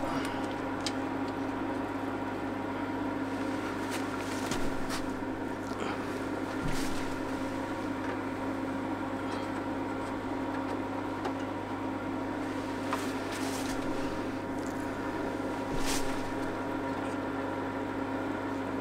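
Steady electric hum, as of a small motor or pump running, with a few light clicks and knocks scattered through it.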